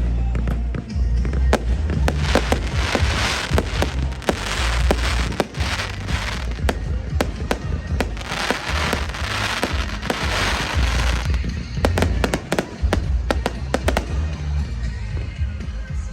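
Fireworks going off in quick succession: many sharp bangs, with long stretches of dense crackling about three seconds in and again around the middle, over music with a heavy bass.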